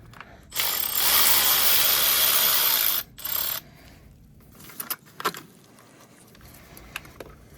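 Handheld power tool spinning a socket for about two and a half seconds, then a short second burst, running the bolt off a car's battery ground strap. A few light clicks and knocks follow.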